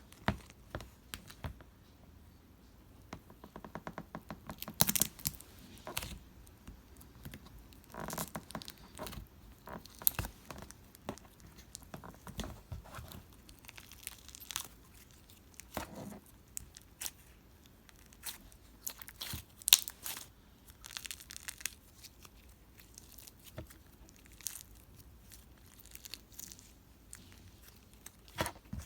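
Iceberg slime's hardened top crust crackling and crunching as it is handled. A quick run of small pops comes about three to five seconds in, and louder crunches are scattered throughout.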